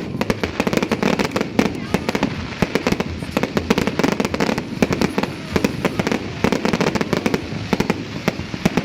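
Fireworks and firecrackers going off all around in a dense, continuous barrage of sharp cracks and pops, many a second, with no pause.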